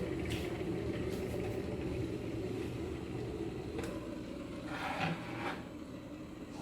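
Steady low rumble of a pot cooking on the stove, with a few faint light clinks and a brief scrape about five seconds in.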